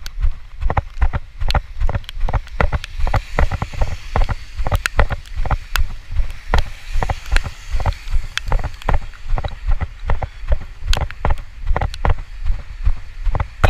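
Walking footsteps with the phone jostling in hand, thumping about twice a second over wind rumble on the microphone, with sharp ticks. A car's tyres hiss past on the wet road around the middle.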